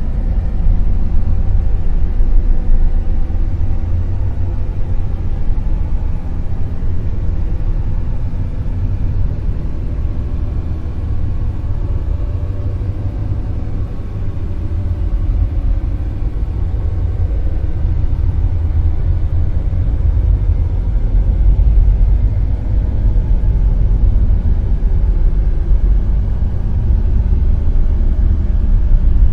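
Dark noise: a steady, deep rumbling hiss with little treble, its loudness slowly ebbing and swelling like a wave, easing to a low point about halfway through and building up again after.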